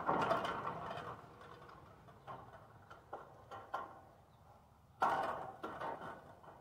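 Pliers pulling an embedded staple out of a wooden fence. Metal creaks and scrapes against wood in a longer stretch at the start and again about five seconds in, with a few short clicks between.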